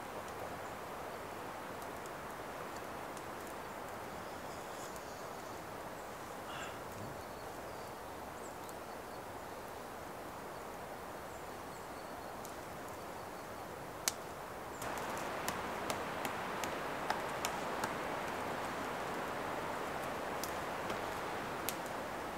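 Steady rushing outdoor ambience of a stormy, wet forest, with scattered sharp ticks. About fifteen seconds in the ambience steps up in level and the ticks come more often.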